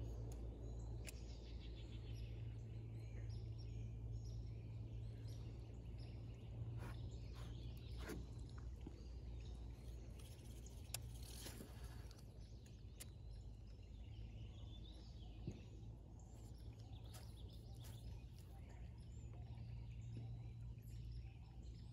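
Birds calling intermittently in short, high chirps, over a steady low hum, with a few sharp clicks.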